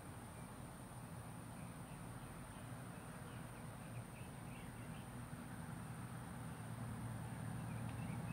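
Faint outdoor background: a steady low hum that slowly grows louder toward the end, with faint high chirps for a few seconds in the middle.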